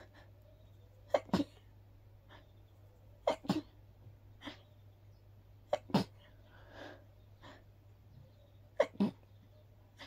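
A person sneezing again and again: four sharp, breathy sneezes about two to three seconds apart, each a quick double burst, with softer breaths between. The sneezing is brought on by a grass pollen allergy.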